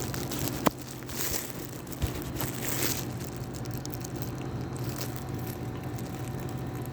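Hand-tool and handling noises from work on a transmission cooler hose and its clamp: two sharp clicks and short bursts of scraping and crinkling, over a steady low hum.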